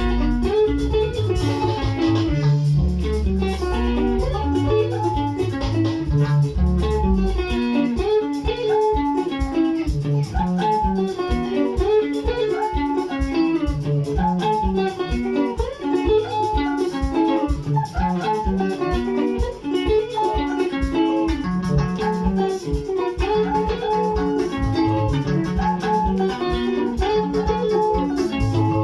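Instrumental guitar music with no singing: plucked guitar lines over a bass line, with notes following each other without a break.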